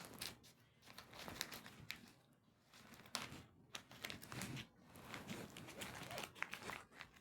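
Faint crinkling and scattered light clicks of small objects and containers being handled.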